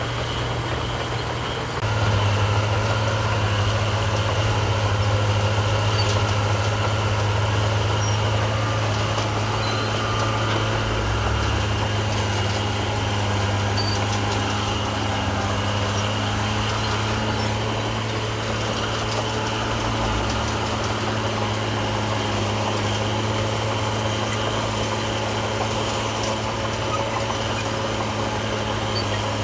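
Heavy construction machine's diesel engine running steadily at a low, even speed, stepping up in loudness about two seconds in.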